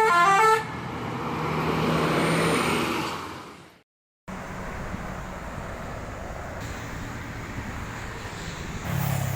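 A bus's telolet musical horn plays a quick run of stepped notes that ends about half a second in. The bus then passes, its engine and tyre noise swelling and fading away over the next three seconds. After an abrupt cut, steady road traffic noise follows.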